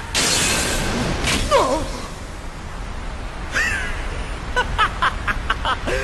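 A young man's voice laughing maniacally in a quick run of short 'ha-ha-ha' bursts in the second half, after a rush of swirling tornado wind at the start.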